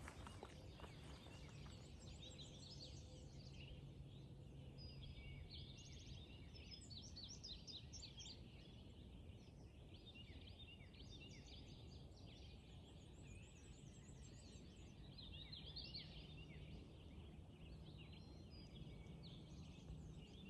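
Faint songbirds singing: many quick chirps and trills from several birds at once.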